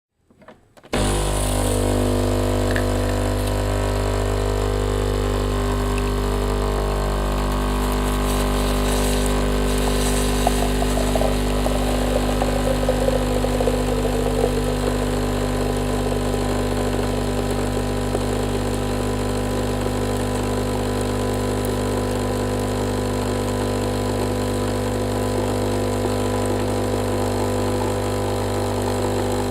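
Krups Nescafé Dolce Gusto Oblo capsule coffee machine brewing: its pump switches on about a second in and hums steadily. It turns rougher and more sputtering for a few seconds around the middle, then settles back to a steady hum.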